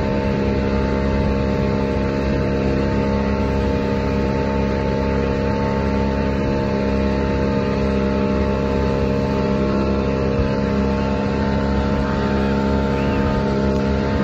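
Speedboat outboard motor running steadily at constant speed while towing a banana boat, over the rush of the churning wake.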